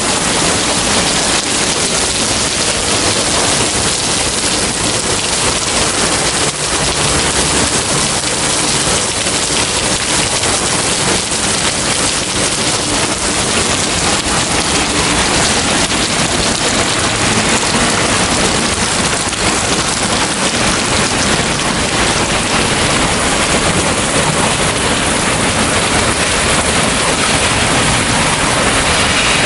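Torrential rain pouring onto asphalt and the surrounding roofs and cars: a steady, dense hiss.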